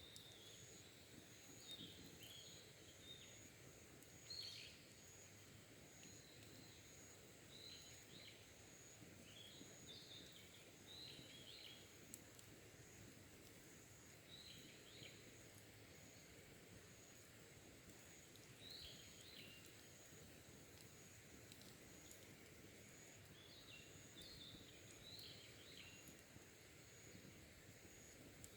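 Faint wild birds chirping in short twittering phrases every few seconds, over a steady, high, evenly pulsing insect trill.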